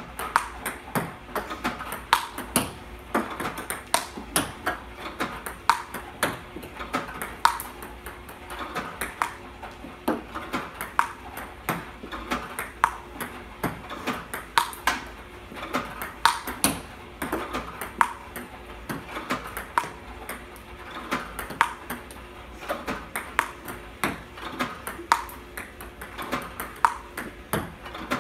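Table tennis practice against an iPong Pro ball-feeding robot: ball launches, bounces on the table and forehand hits with a Stiga Pro Carbon paddle make a steady stream of sharp, light clicks in a regular rhythm.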